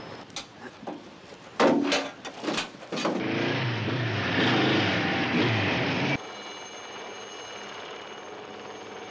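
Choppy, rapidly cut film soundtrack: a few sharp knocks, then about three seconds of dense noise with a low wavering hum. About six seconds in it switches abruptly to a steady high ringing tone held on several pitches.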